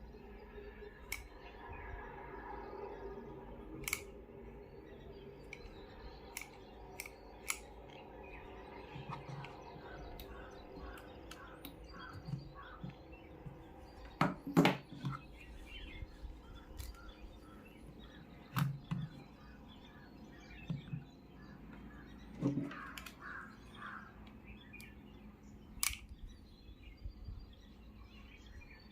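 Scattered sharp clicks and taps, the loudest about halfway through, with birds chirping faintly in the background.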